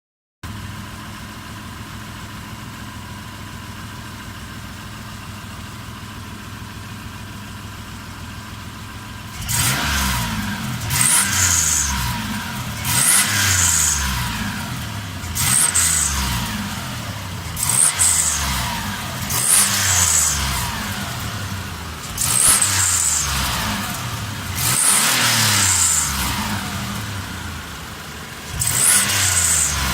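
The Mitsubishi 380's 3.8 L V6, swapped into a Pajero, idles steadily, then is revved and let fall back about eight times, with a high-pitched note at the top of each rev. This is the strange noise the engine has made since the conversion, unchanged for months.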